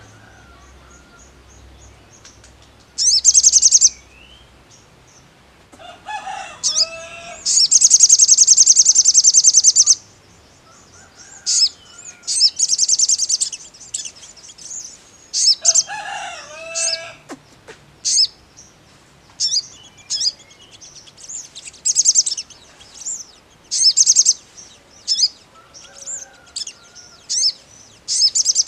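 Male olive-backed sunbird (sogon) singing: a run of sharp, high chirps and phrases, with one loud, fast trill lasting a couple of seconds near the start.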